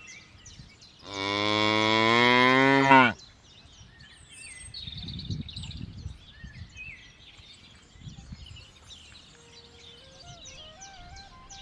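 Water buffalo giving one long low moo about a second in, lasting about two seconds. Afterwards birds chirp faintly, and near the end a few soft tones step upward.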